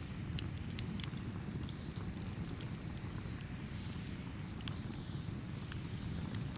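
Campfire burning with a steady low rumble and scattered sharp crackles and pops from the burning wood, a cluster of them about a second in.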